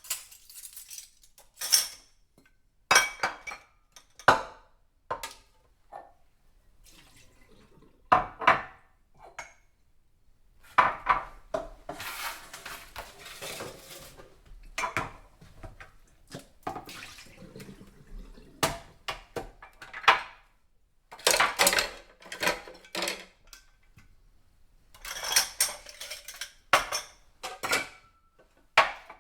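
Washing dishes by hand: plates, pots and cutlery clink and clatter in irregular bursts with short pauses. About halfway through, a tap runs for a couple of seconds.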